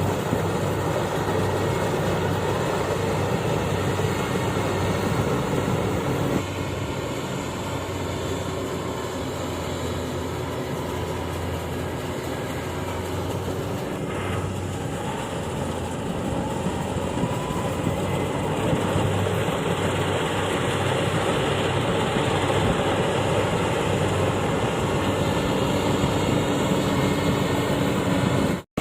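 Yanmar AW70V rice combine harvester running steadily under load, its diesel engine humming under the noise of its cutting and threshing machinery.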